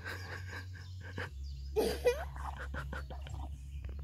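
A French bulldog whining briefly about two seconds in, a short cry that bends in pitch, with scattered faint clicks over a steady low rumble.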